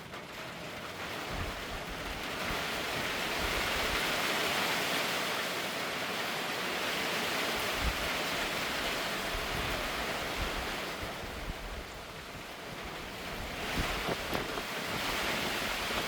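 Rain falling: a steady hiss that swells over the first few seconds, eases about three quarters of the way through and picks up again near the end, with low rumbles of wind buffeting the phone's microphone.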